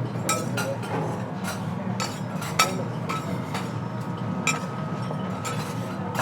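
Ambience of dishes, glasses and cutlery clinking irregularly over a steady low background hum, with a thin steady ringing tone coming in about halfway through.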